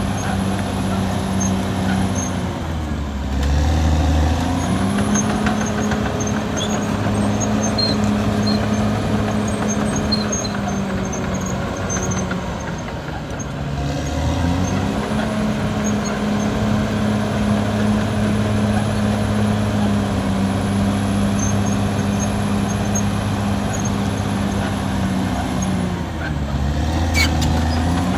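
Caterpillar D6R XL bulldozer's diesel engine running steadily under load. Its pitch sags and recovers three times, about 3, 13 and 26 seconds in, with faint ticking over it.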